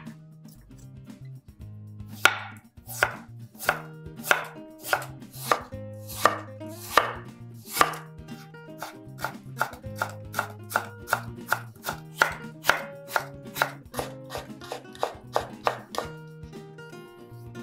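Chef's knife slicing a raw potato and cutting the slices into thin strips, each stroke ending in a sharp knock on a wooden cutting board. The strokes come steadily, about one and a half a second at first, quicken to about two a second, and stop near the end.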